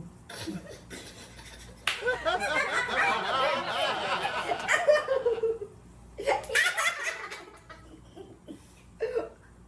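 People laughing: a long burst of laughter starting about two seconds in and lasting some four seconds, then a shorter burst.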